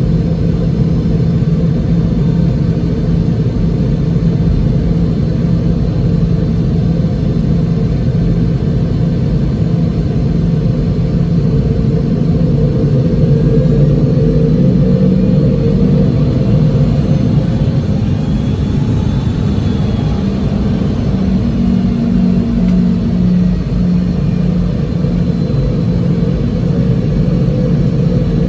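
The Boeing 717's two rear-mounted Rolls-Royce BR715 turbofan engines running, heard inside the cabin as a loud, steady rumble with a low drone. The drone shifts slightly in pitch partway through.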